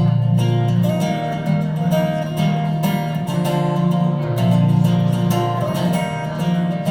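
Acoustic guitar strummed, playing a country song's instrumental intro.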